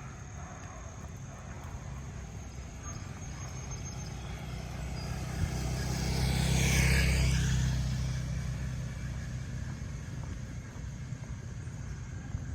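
A car driving past on the street, growing louder to its loudest about halfway through and then fading away.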